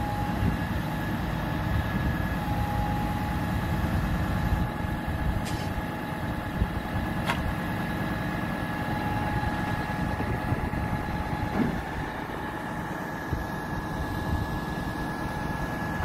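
Diesel engine of a Putzmeister 47 m truck-mounted concrete boom pump running steadily at idle, with a thin steady whine over it from about two seconds in.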